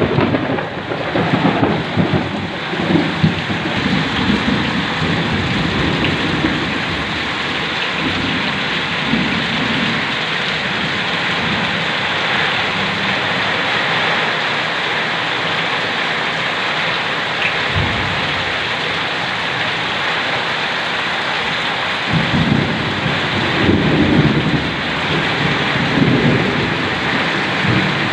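Heavy rain pouring steadily onto the ground and road, with irregular low rumbling surges near the start and again near the end.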